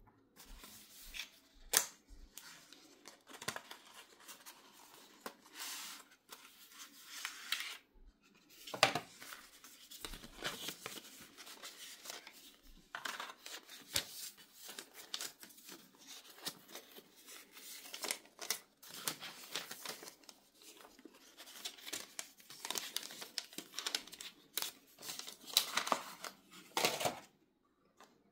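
Cardboard and paper packaging of a Motorola Razr 50 Ultra retail box handled by hand: the box sliding from its sleeve, inserts lifted out, and paper rustling and scraping, with occasional sharp taps.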